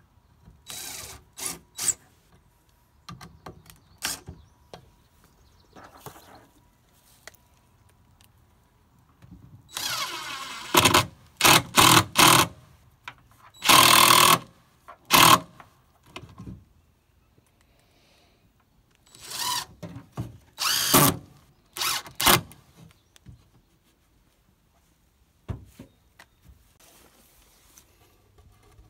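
Cordless DeWalt drill-driver running in short bursts, driving screws into a wooden board. There are several quick runs in a row, each about a second long, with pauses between them.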